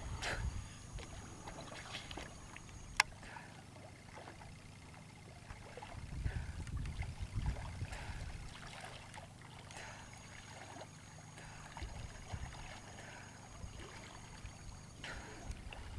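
Gentle splashing and lapping of lake water from a swimmer's breaststroke strokes, with a low rumble coming and going. A single sharp click about three seconds in.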